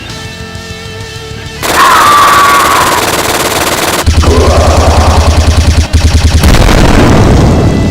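Action music, then a loud burst of gunfire sound effects: a noisy blast with a falling whistle, rapid machine-gun fire at about eight shots a second, and another loud blast before the music returns.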